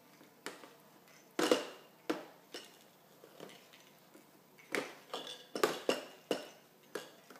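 Plastic toys knocking and clattering on a plastic high-chair tray as a baby picks them up and sets them down: a dozen or so irregular taps, louder around a second and a half in and again in a cluster near the end.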